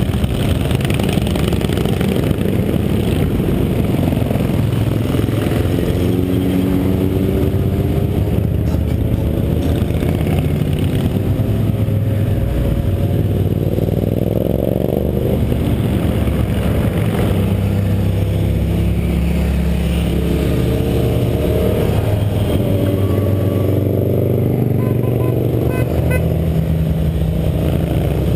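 A procession of motorcycles riding past one after another, several engines overlapping, their notes rising and falling as each bike accelerates and goes by.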